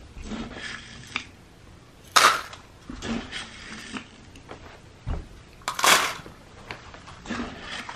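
Dry cat food crunchies poured from a plastic scoop into paper cupcake liners, a short loud rattle about two seconds in and again about six seconds in. Softer crunching and rustling between them as cats eat the dry food from the liners.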